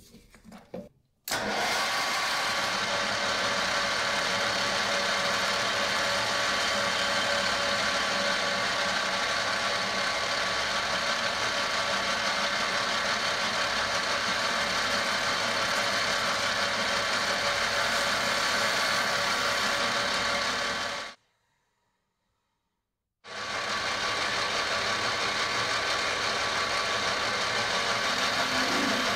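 Metal lathe running as it turns a brass rod: a steady machine whine with many fixed tones over a hiss, starting suddenly about a second in after a few light clicks of the chuck key. It cuts off abruptly for about two seconds, then resumes the same way while a twist drill bores into the spinning brass.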